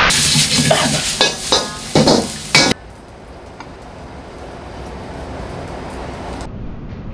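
Fried rice being stir-fried in a wok: the metal ladle scrapes and clanks against the wok over the sizzle, with several sharp strikes. About two and a half seconds in it cuts off abruptly to a much quieter, steady hiss.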